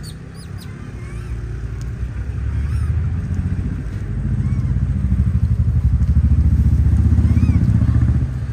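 A motor vehicle's engine running close by with a fast, even pulsing. It grows louder about four seconds in and drops away near the end, with a few faint high chirps over it.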